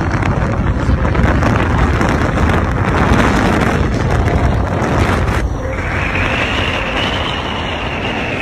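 Car driving with a loud rush of road noise and wind buffeting the phone's microphone; the rush eases slightly past the middle.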